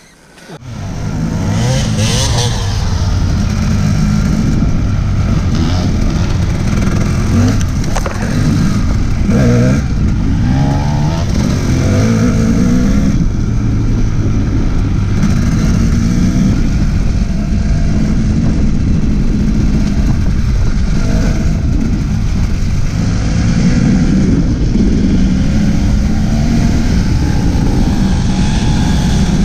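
Dirt bike engine running while riding a bush trail, its pitch rising and falling with the throttle. It builds up from a brief lull in the first second, then stays loud throughout.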